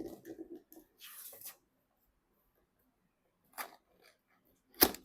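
Handling noises of PC parts and packaging: soft bumps, a short rustle about a second in, then sharp clicks and taps, the loudest near the end.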